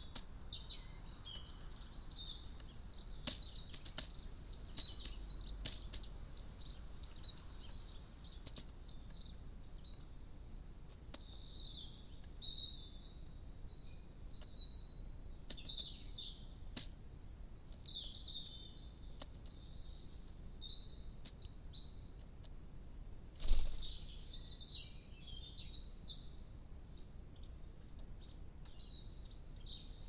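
Small birds chirping throughout, with scattered sharp taps as a great spotted woodpecker pecks at seed in a plastic feeder tray. One loud thump comes about three-quarters of the way through.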